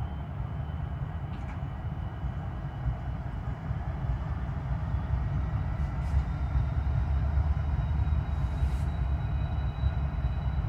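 Freight cars rolling slowly past: a low steady rumble of steel wheels on rail, growing a little louder about halfway through, with a faint thin high squeal from the wheels and three light clicks.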